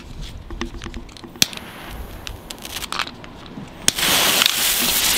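Scattered clicks as a lighter is handled. About four seconds in there is a sharp click, then a loud, steady hiss starts as the lighter flame lights a piece of Flying Fish crackling fuse and the fuse catches.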